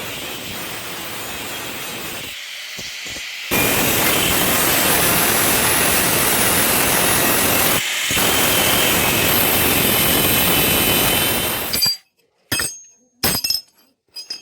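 Angle grinder running under load, working material in a few abruptly edited stretches, with a high whine over the grinding noise. It cuts off sharply near the end, followed by a few sharp metallic clinks.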